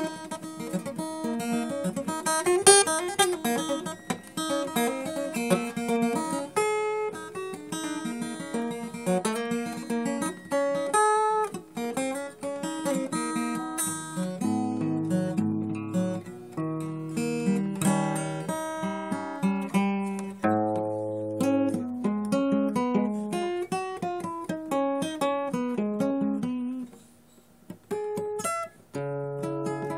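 Acoustic guitar playing a melody of picked single notes and quick runs. It breaks off briefly near the end, then starts again.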